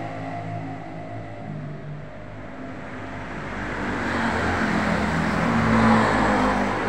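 Road traffic with a motor vehicle passing close by, growing louder through the second half and loudest near the end.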